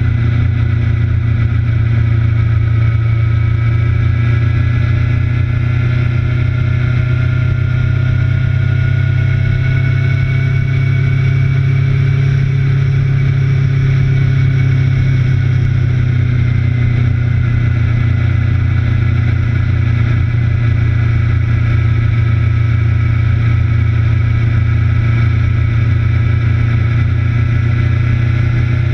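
Motorcycle engine running at speed on a race track, heard from a low-mounted onboard camera: a loud, steady drone with slow, gentle changes in pitch.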